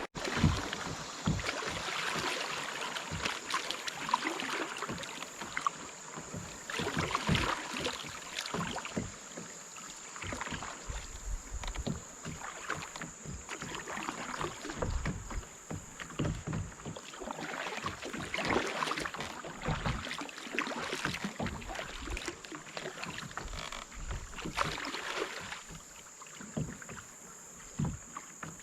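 Kayak paddle strokes dipping and splashing in the river, a surge of water noise every two to three seconds.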